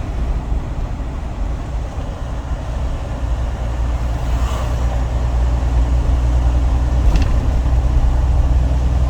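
Diesel engine of a semi truck running steadily with road noise while driving, growing gradually louder through the middle; a brief light tick about seven seconds in.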